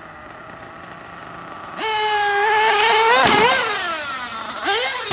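Losi 8ight-T nitro RC truggy's small two-stroke glow engine, faint at first, then opened up to full throttle about two seconds in with a loud, high-pitched scream. The pitch climbs, then sweeps down past the middle, and short throttle revs follow near the end.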